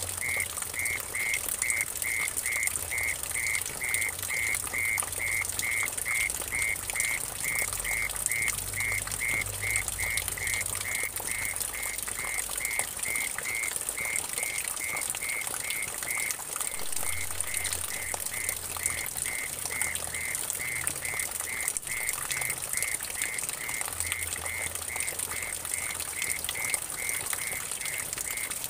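A mole cricket's steady, evenly pulsed high trill over a thin stream of water splashing continuously into a puddle.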